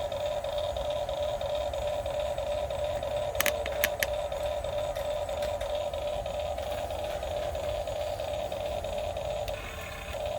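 Electric motors of a Huina 1550 RC excavator whining steadily as the model works. Three sharp clacks come about three and a half to four seconds in, and the whine drops briefly near the end before picking up again.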